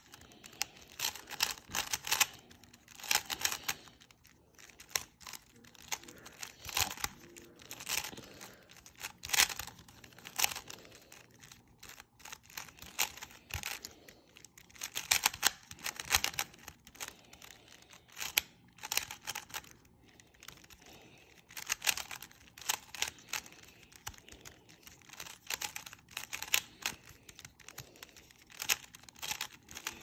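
Plastic 3x3 speed cube's layers being turned by hand: quick runs of clicking, clacking turns lasting a second or two, with short pauses between the runs.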